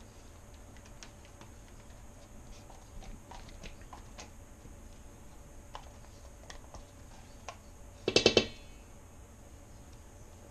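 Spatula scraping and tapping thick mayonnaise dressing out of a plastic pint container into a bowl of shredded cabbage, heard as faint scattered clicks and scrapes. One short, louder pitched sound comes about eight seconds in.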